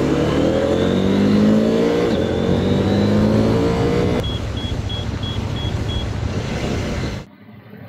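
CFMOTO 800MT Explore's parallel-twin engine accelerating, its pitch climbing, dipping once about two seconds in as at a gear change, and climbing again, over wind and wet-road tyre hiss. About four seconds in the engine note drops away, leaving wind and road hiss with six short high beeps evenly spaced, and the sound cuts off abruptly near the end.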